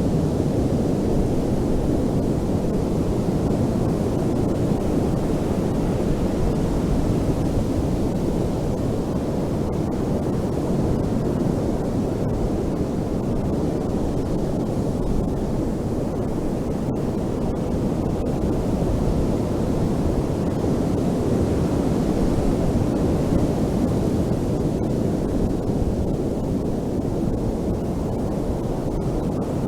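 Ocean waves breaking and washing on a beach: a steady, low rushing surf with no distinct individual crashes.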